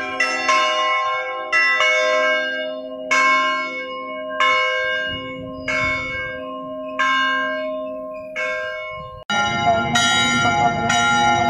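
Church bells ringing, separate strikes roughly every second or so, each left to ring out. About nine seconds in the sound breaks off abruptly and gives way to denser, fuller ringing.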